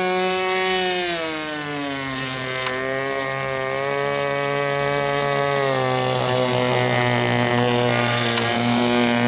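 RC airboat's OS .25 nitro glow engine running with its propeller, a high buzzing drone. The pitch drops about a second in as the throttle is eased back, then holds lower with small wobbles and rises a little near the end.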